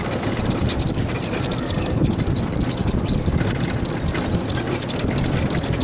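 Battery-operated electric zoo cart in motion: steady tyre rumble on the paved path, with the open body rattling and clicking.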